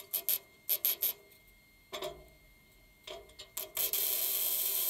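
MIG welder spot-welding a steel repair patch into a classic Mini's rear wheel arch. A run of short separate welding blips, then a steady weld of just over a second near the end.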